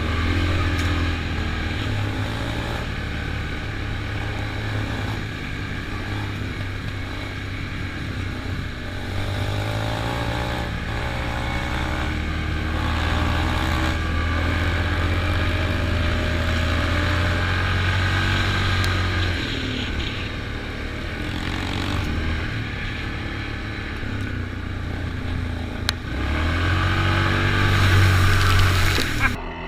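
Single-cylinder off-road vehicle engine running and revving, its pitch rising and falling with the throttle. It is loudest near the end, then cuts off suddenly.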